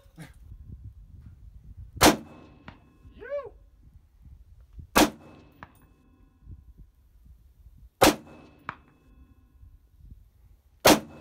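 Four shots from an AR-15 rifle firing 5.56mm rounds, about three seconds apart, each followed about half a second later by a fainter clang of the bullet striking a steel target, which rings briefly.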